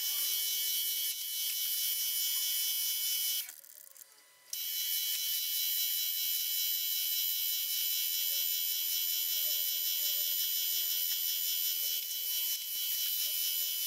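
Small milling machine's spindle running with a steady high-pitched electric whine while a twist drill bores a hole in an aluminium bar held in a vise. The sound cuts out for about a second around three and a half seconds in, then resumes unchanged.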